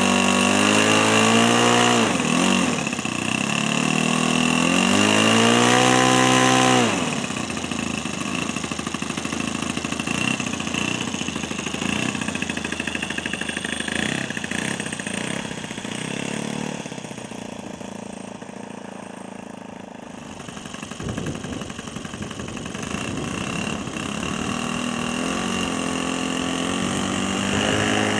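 MBM 32 cc four-stroke gasoline engine of a quarter-scale RC model airplane, turning a 20×8 propeller, run up twice to high power in the first seven seconds and then dropped back to idle. It idles unevenly, with the throttle opened partway again in the second half.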